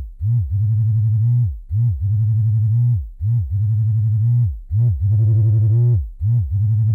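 Electric vibrator buzzing in a pulsing pattern: a low hum that switches on and off every second or so, with a few short pulses, sliding up in pitch as it starts and down as it stops. About five seconds in it buzzes harder and brighter for about a second.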